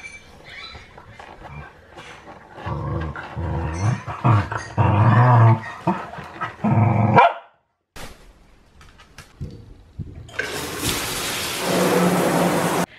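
Puppies and an adult dog play-fighting, with scattered scuffling clicks and a run of loud short vocal bursts in the middle. About ten seconds in, a bath's hand-held shower head sprays water with a steady loud hiss.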